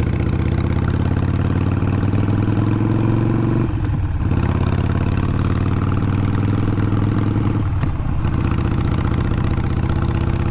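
Harley-Davidson Sportster's air-cooled V-twin, bored out to 1275 cc, pulling away at low revs under break-in limits. Its pitch climbs slowly, dips briefly about four seconds in and again about eight seconds in as the rider shifts up, then carries on steadily.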